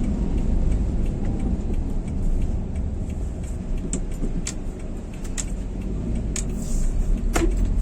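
Engine and road rumble heard inside the cabin of a moving 2011 Daihatsu Xenia with a 1.3-litre engine, easing off slightly in the middle and rising again near the end. A few short, sharp clicks sound over it.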